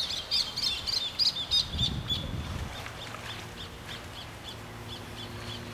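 A bird calling with a fast run of high, repeated chirps that slows to about three a second and fades after about two seconds. A brief low rumble about two seconds in, then a faint steady low hum.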